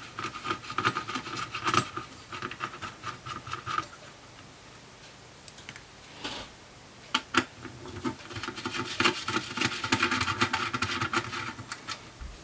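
Screwdriver turning small screws out of a digital video recorder's sheet-metal chassis: rapid clicking and scraping in two bouts, one at the start and another from about seven seconds in until near the end.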